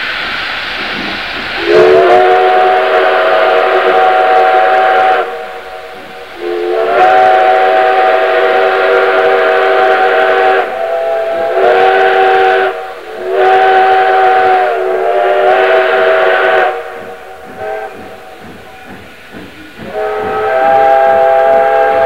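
Steam whistles of steam locomotives 3254 and 2317 blowing a series of blasts, each a multi-note chord that slides up to pitch as it opens: two long blasts, then several shorter ones, a lull, and one more blast near the end. A hiss of escaping steam fills the gaps between blasts.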